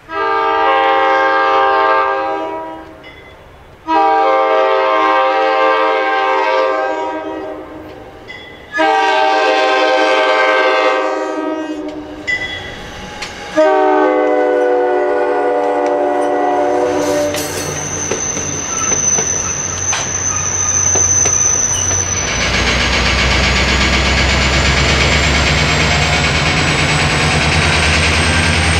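A MARC commuter train's horn sounds a multi-note chord in long blasts, with one short blast before the last, as the train approaches and passes. Then the train runs by with wheel-on-rail noise and a steady high ring, and a diesel locomotive's deep rumble with a slowly rising whine takes over for the last few seconds.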